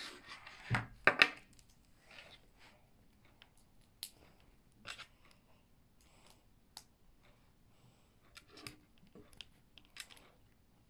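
Small plastic LEGO pieces clicking and rustling as they are handled and pressed together, in scattered irregular clicks, the loudest a quick cluster about a second in.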